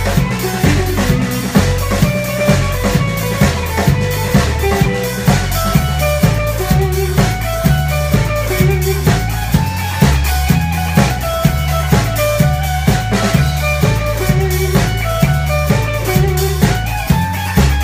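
Live band with upright bass, electric guitar and drum kit. The upright bass is loud and close, and its notes change with a steady drum beat under the guitar lines.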